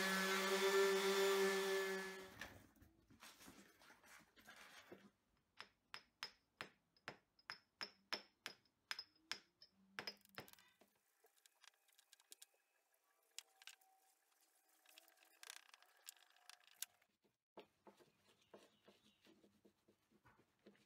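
Random orbital sander running on an aluminium plate with a steady hum, switched off about two seconds in and spinning down. After it come a run of soft ticks, about two a second, then scattered faint clicks and rubbing as the plate is polished by hand with a cloth.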